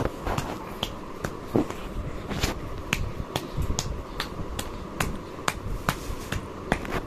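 Light, regular pats of an oiled palm on a baby's back during an oil massage, making sharp little smacks about two to three times a second.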